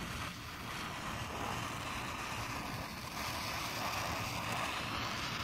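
Handheld torch flame hissing steadily.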